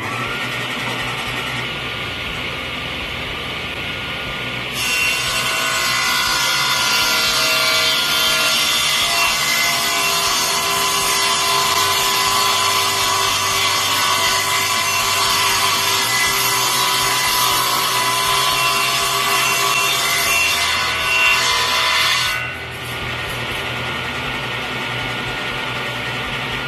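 Table saw running, then ripping through an oak threshold board for about 17 seconds; the cut is louder and brighter than the saw alone. The saw then runs free again after the board clears the blade.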